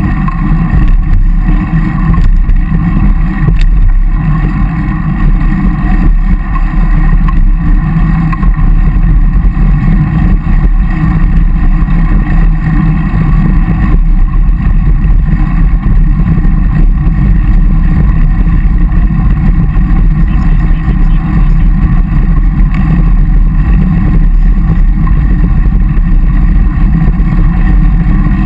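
Steady, loud wind and road rumble picked up by a microphone mounted on a moving road bike, a continuous low drone with no break.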